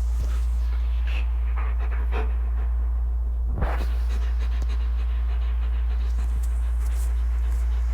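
A dog panting, with a short louder breath about three and a half seconds in, over a steady low hum.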